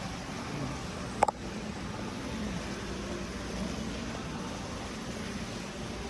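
Steady background hum of indoor ventilation with one sharp click about a second in.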